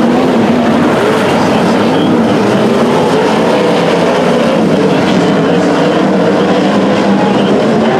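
Several winged sprint cars' V8 engines racing on a dirt oval. The engine note keeps rising and falling as the cars accelerate and lift, overlapping as the pack goes by.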